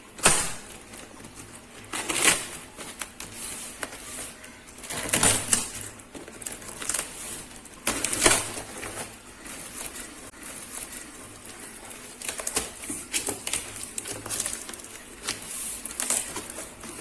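Cardboard box and cardboard packing being handled: irregular scraping, rustling and knocking, with louder scrapes about a second in, near two, five and eight seconds, and lighter clicks between.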